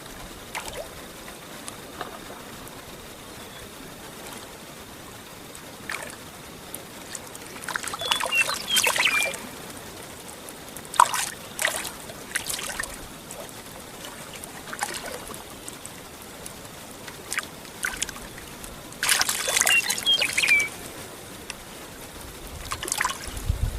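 Water trickling and lapping, with two bursts of splashing about eight and nineteen seconds in, and a few smaller splashes between.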